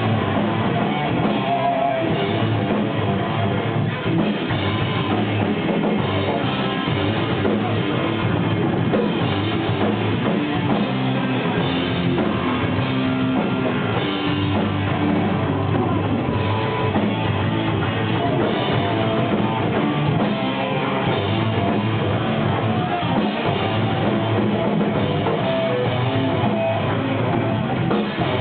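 Live rock band playing without a break: electric guitars and a drum kit, heard from among the audience.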